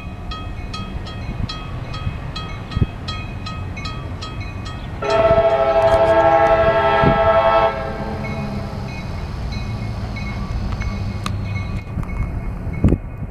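CSX freight locomotive approaching with a steady low engine rumble, sounding one long horn blast about five seconds in. A crossing bell dings rapidly, about four strokes a second.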